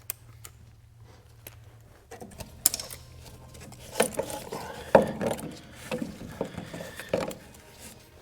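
Hand tools knocking and clinking on metal: a run of irregular sharp knocks and scraping rattles starting about two seconds in, the loudest a few seconds later.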